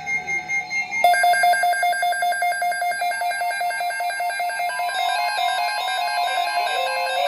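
Electronic alert tone: from about a second in, a pitched tone beeps rapidly and evenly, about eight times a second, over other held electronic notes, with a slide down and back up in pitch near the end.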